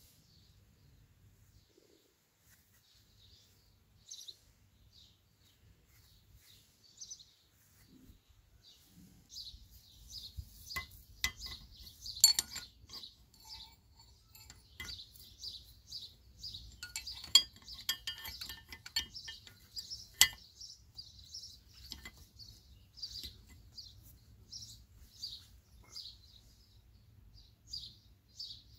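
Metal clinks and knocks of hand tools and a steel coil spring as a scooter shock absorber is worked on with an adjustable wrench, hammer and screwdriver. The clinks are scattered through the second half, with the sharpest ones at about twelve, seventeen and twenty seconds in. Birds chirp throughout.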